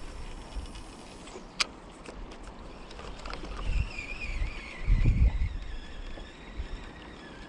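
Wind buffeting the microphone in gusts, strongest about five seconds in, with a sharp click about one and a half seconds in and a faint, thin wavering whine through the second half.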